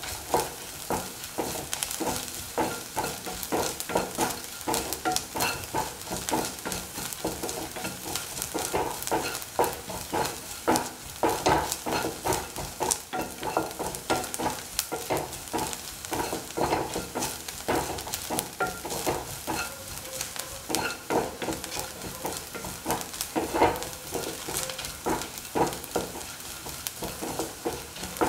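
Sliced shallots and dried Kashmiri chillies sizzling in hot oil in a pan, with a utensil stirring and scraping them in quick, repeated strokes.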